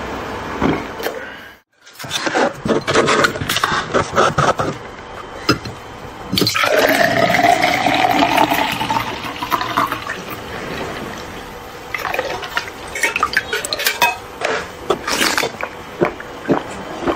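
Two cans of milk drink poured at the same time into a tall glass, the pouring tone rising in pitch as the glass fills. After that comes a run of loud gulps as the glass is drunk. Before the pour, after a brief gap, there is a string of sharp clicks and knocks.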